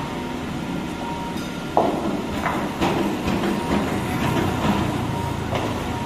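Cat excavator's diesel engine running steadily, with a sharp knock about two seconds in and scattered clacks of stones knocking together after it.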